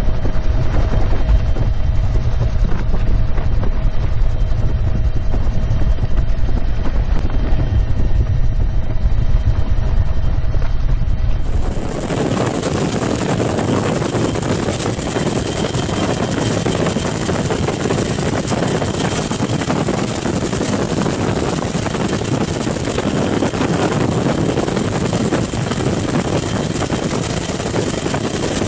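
UH-1 Huey helicopter in flight, heard from inside the cabin with the doors open: a steady loud rotor and engine rumble with wind rushing past. About twelve seconds in, the sound changes abruptly to a brighter, even rushing noise with less low rumble.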